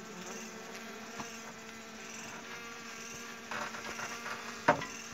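Honey bees buzzing in a steady drone. A brief scraping rustle comes just after halfway, then a single sharp knock near the end.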